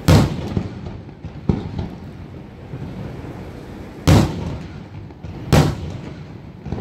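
Aerial firework shells bursting: a loud bang at the start, a lighter one about a second and a half in, then two more loud bangs about four and five and a half seconds in, each echoing briefly.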